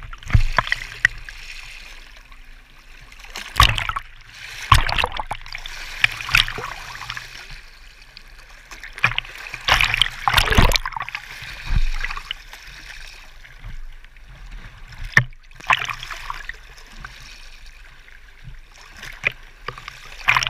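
Small lake waves sloshing and splashing against a waterproof camera held at the water's surface, washing over the lens in irregular surges with a gurgling wash between them. The biggest surge comes about ten seconds in.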